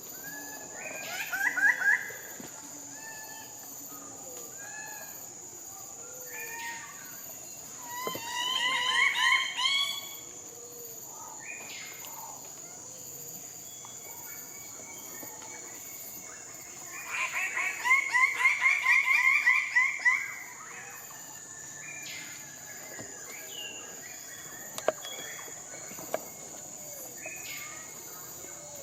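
A bird-of-paradise calling in three loud bouts of quickly repeated notes, about a second in, around eight seconds in and from about seventeen to twenty seconds, the middle bout rising in pitch. Insects buzz steadily and high throughout.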